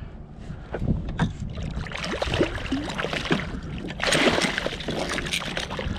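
A hooked fish thrashing and splashing at the surface right beside a kayak hull. Irregular splashes from about a second in, loudest from about four seconds in.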